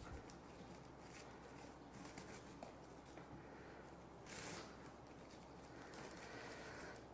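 Near silence with faint rustling and crinkling as plastic twine is tied around couch springs over bubble wrap, a little louder about four seconds in.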